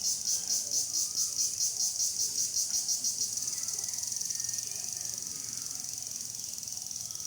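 High-pitched insect chirping, pulsing about five times a second, that turns into a steady trill about three seconds in.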